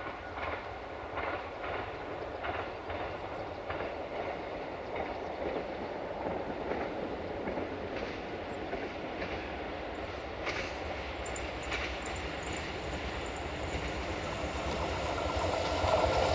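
Approaching train, its wheels clicking irregularly over rail joints over a steady rumble, growing louder near the end.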